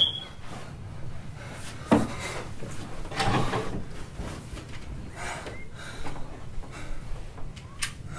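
Wooden under-bed drawer being pulled open with a scrape, after a sharp knock, followed by cloth rustling as something wrapped in fabric is handled, and a small click near the end.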